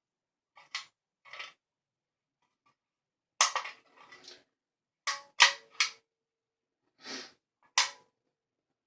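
Heavy iron padlock being handled: about eight sharp metallic clicks and clanks at uneven intervals, several with a brief ring.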